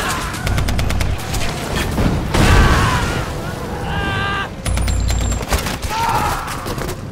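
Battle sounds: rapid rifle and machine-gun fire with deep booms, and men yelling over the gunfire.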